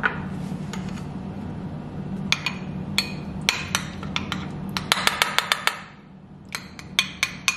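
Spoon clinking and tapping against a glass bowl while stirring a thick chipotle cream sauce, in irregular runs of quick taps starting about two seconds in.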